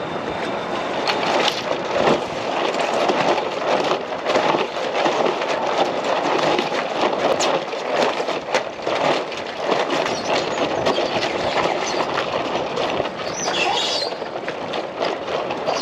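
Wind rushing and buffeting with a sailboat's jib flapping and cracking in irregular bursts as it is lowered on the forestay in a fresh breeze.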